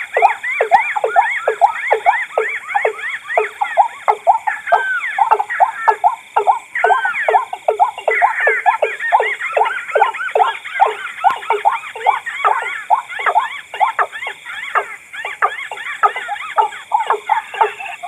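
Mixed bird-call recording of a watercock (ayaman), a white-breasted waterhen (wak wak) and a tikusan crake calling together. A steady series of repeated downward-sweeping calls, about two to three a second, with other calls overlapping above them.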